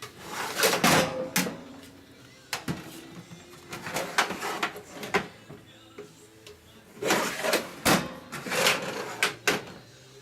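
Metal toolbox drawers being slid open and shut, with the tools and sockets inside clattering, in several bursts of knocks and rattles.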